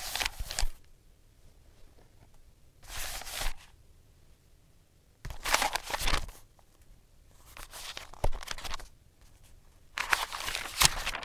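Corgis' tongues licking and rubbing across a glass window pane, in five short bursts of scraping noise about two to three seconds apart.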